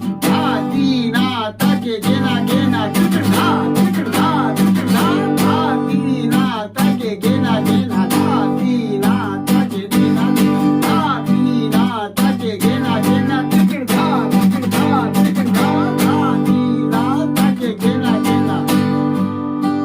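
Acoustic guitar strummed continuously in a steady rhythmic pattern, with melodic fills between the chords.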